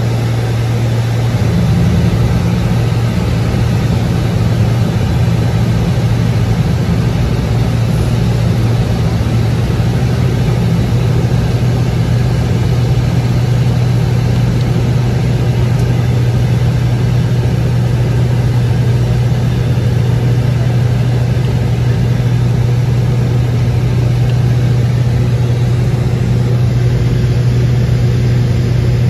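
Cessna 402's twin turbocharged six-cylinder piston engines and propellers droning steadily in cruise descent, heard from inside the cockpit. The drone gets slightly louder about two seconds in and then holds steady.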